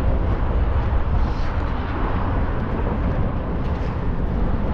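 Wind buffeting the microphone: a steady, uneven low rumble with a light hiss over it.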